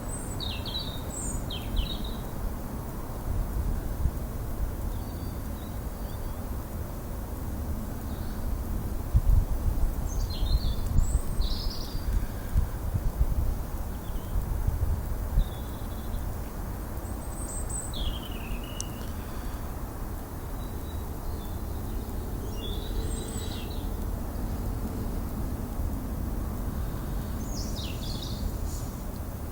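Wild birds giving short, scattered chirps and calls over a steady low outdoor rumble, which gets louder in gusts about a third of the way through.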